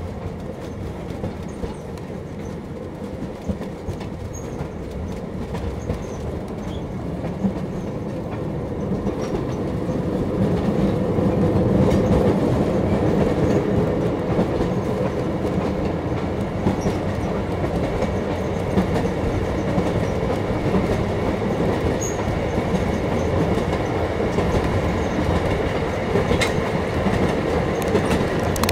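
An excursion train running along the track, heard from an open-sided passenger car: a steady rumble of wheels on rail that grows louder about ten seconds in.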